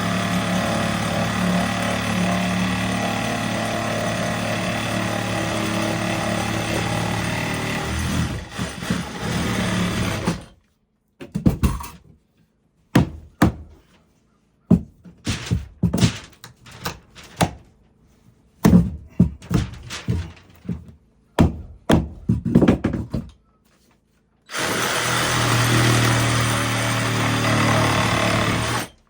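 A power tool running steadily with a low hum, then a string of short, sharp knocks and brief bursts separated by silent gaps. About twenty-five seconds in, the steady running starts again.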